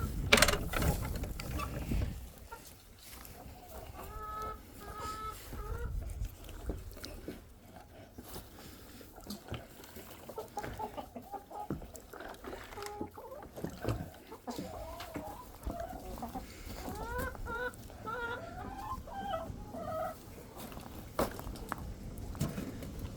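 Chickens clucking, with short runs of calls about four seconds in and again in the second half, and scattered knocks, the loudest a thump right at the start.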